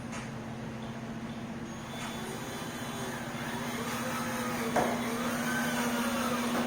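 Power drill driving a screw through a wooden bed slat into a 2x4, its motor rising and falling in pitch, with a sharp click about halfway through. A steady low hum runs underneath.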